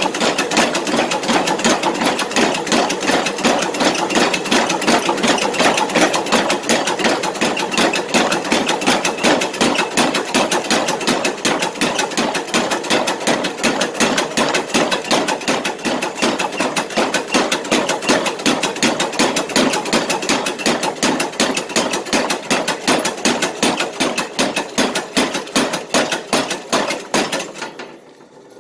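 Rapid, regular hammer blows forging Damascus steel, several a second, growing a little quieter and stopping about a second before the end.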